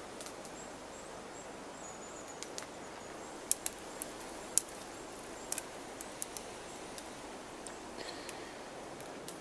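Thin, dry, dead spruce twigs snapped off by hand: a scattered series of sharp little cracks, thickest in the middle few seconds, over a faint steady outdoor hiss.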